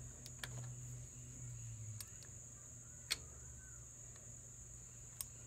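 A few scattered metal clicks from a small wrench loosening the terminal nuts on a tractor's ignition coil, the sharpest about three seconds in.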